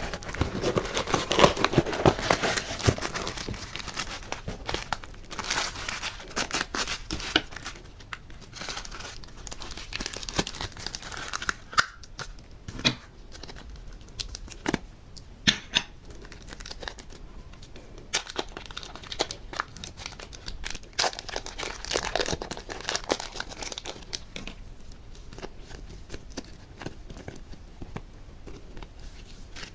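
Close-up handling sounds: crinkling and tearing with many sharp clicks and taps throughout, busiest at the start and again about two-thirds of the way in.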